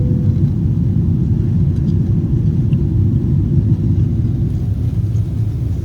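Steady low cabin rumble of a Boeing 777-300ER climbing out after takeoff, its GE90 engines heard from a seat in the rear cabin. A short tone dies away in the first half second.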